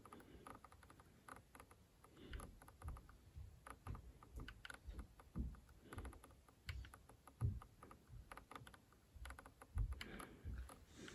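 Spektrum NX8 transmitter's scroll roller being turned and pressed under a thumb, giving quick, soft, irregular clicks in runs as the menu list scrolls.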